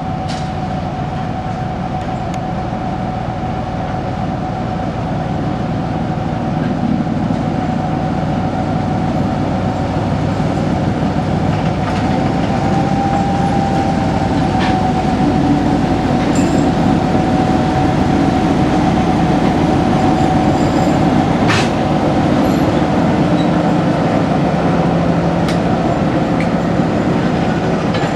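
Soviet M62 diesel locomotive, with its two-stroke V12 diesel engine running, hauling freight wagons slowly past at close range, with a steady high whine over the engine. It gets louder as the locomotive comes alongside, and there are a few sharp clicks from the wheels on the track.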